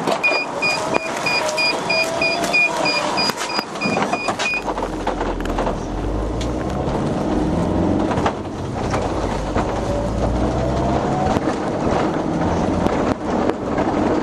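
Minibus and road traffic noise: a fast, evenly spaced run of high electronic beeps over the first four seconds or so, then a steady low rumble of vehicles.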